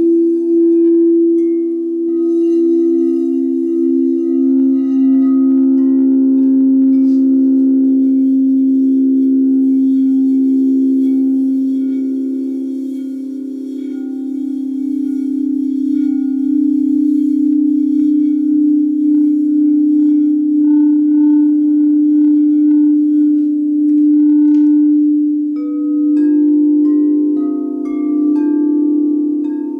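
Crystal singing bowls played with a mallet: deep sustained tones overlapping and slowly wavering in and out. Near the end, several higher notes come in one after another over the held low tones.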